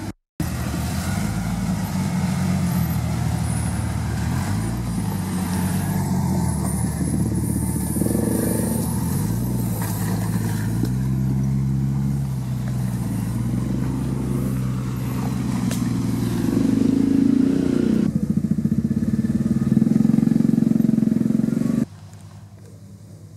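Off-road 4x4's engine running under varying throttle, its pitch rising and falling as it revs up and down, louder in the last few seconds. The sound cuts out briefly at the very start, and near the end it drops abruptly to a quieter engine.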